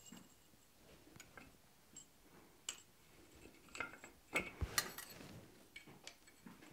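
Scattered light metallic clinks and ticks as a hot steel bar is seated in a small drill-press vise on the anvil and the vise is screwed tight by its handle. The loudest two clinks come about two-thirds of the way in.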